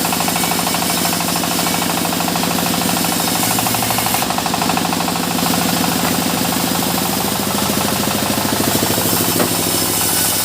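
Sawmill machinery running: an engine runs steadily with a fast, even beat, with a high hiss on top that grows louder about four seconds in.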